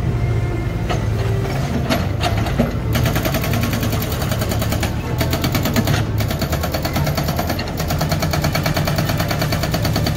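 Hydraulic rock breaker on a JCB 3DX backhoe loader hammering into rocky ground over the steady running of the machine's diesel engine. A few single knocks come first, then rapid, even hammering starts about three seconds in and goes on with a few brief pauses.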